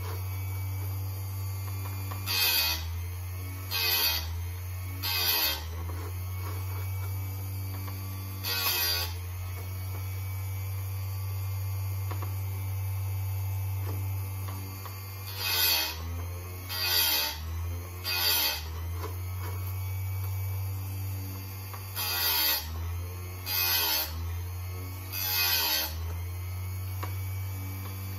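Chicago Electric electric chainsaw chain sharpener running with a steady motor hum, its grinding wheel lowered onto the chain's cutter teeth for about eleven short grinding passes, mostly in runs of three about a second and a half apart. Each pass briefly pulls the motor's pitch down.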